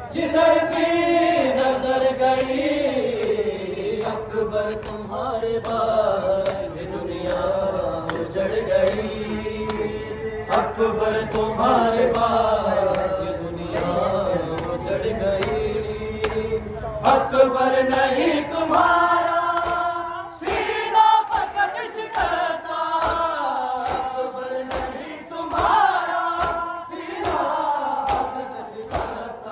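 Men chanting a noha (a Shia mourning lament) together, in long, held melodic lines, led by reciters reading from lyric sheets. About two-thirds of the way in, a regular beat of chest-beating (matam) thumps joins the chant.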